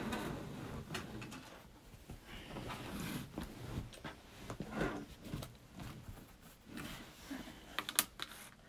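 Thick denim quilt layers being trimmed and handled on a table: fabric rustling and scraping with irregular knocks, and a few sharp clicks about eight seconds in.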